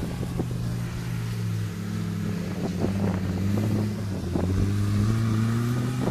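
Engine of an off-road 4x4 working under load as it drives across a bumpy meadow, its pitch rising and falling with the throttle. Scattered knocks and rattles come in over the bumps.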